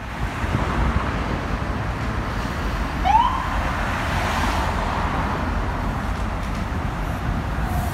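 Busy road traffic with a Nova Bus LFS city bus's diesel engine approaching and a steady deep rumble. About three seconds in comes a single short rising whoop, siren-like.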